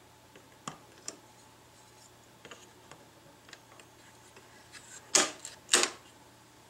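Steel binder clips clicking onto the rim of a plastic bucket. There are two light clicks about a second in, then two loud snaps about half a second apart around five seconds in.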